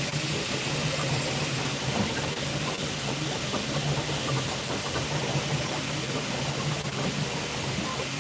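A steady low hum under an even hiss, unbroken throughout: a machine running continuously.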